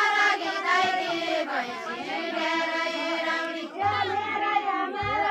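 A group of women singing a Deuda folk song together in unaccompanied chorus, voices only.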